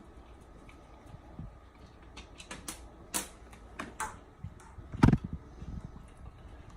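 Hard plastic clicks and taps from a washing machine drain pump and its housing being handled and pried apart, with one louder knock about five seconds in.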